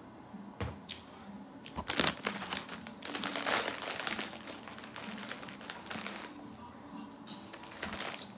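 Crinkling and rustling handling noise, densest from about two to four and a half seconds in, with a few sharp clicks before and after.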